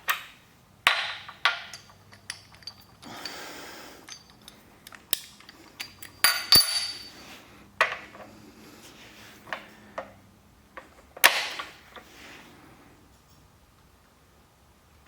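Click-type torque wrench with an ER32 torque wrench adaptor being worked on a digital torque tester: a series of sharp metallic clicks and clinks at uneven intervals, the loudest about a second in, around six seconds in and about eleven seconds in.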